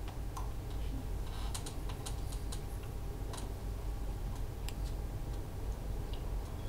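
Low steady room hum with a scattering of light clicks and taps, a cluster of them a second or two in and a few more later.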